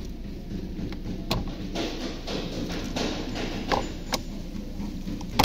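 Plastic dashboard trim panel being worked loose by hand against its stuck locking clips: a few sharp plastic clicks and knocks over low handling noise.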